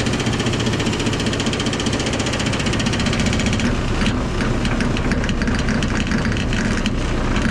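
Scania S500's V8 diesel idling, with a fast, steady metallic rattling from something that has come loose on the truck.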